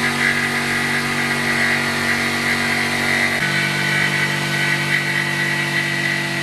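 Electric jigsaw cutting through a board, its motor running steadily under load; its note shifts about halfway through.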